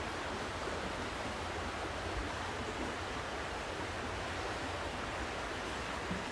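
Steady, even rushing noise with no distinct events, holding at the same level throughout.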